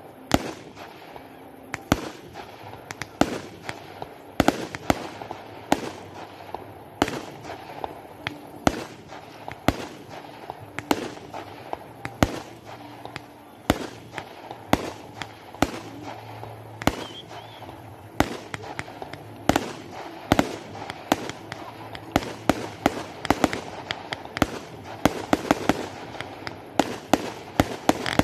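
Aerial firework shells bursting: a rapid, irregular series of sharp bangs that comes thicker and faster near the end.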